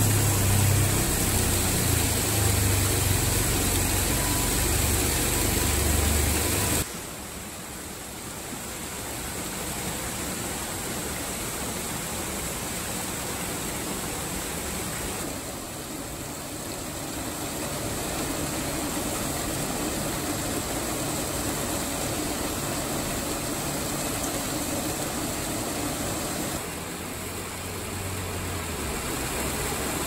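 Hot-spring water pouring over rocks and from a wooden chute into a pool, a steady rushing noise. It is louder, with a low rumble, for the first seven seconds or so, then drops suddenly to a softer steady rush.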